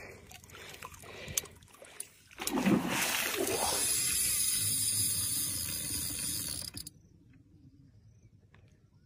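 A hooked fish thrashing at the water's surface beside a landing net. The loud splashing starts about two and a half seconds in, is heaviest at first, and stops abruptly about four seconds later. A few faint ticks come before it.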